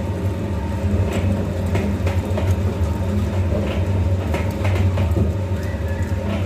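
Groundnut oil press machine running with a steady low hum and a few faint clicks while extracting oil.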